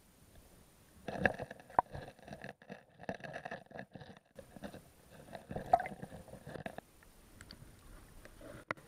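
Muffled underwater knocks, clicks and scrapes picked up through an action camera's waterproof housing on a gravel lake bed, with sharp hits about a second in, near two seconds and near six seconds, then quieter.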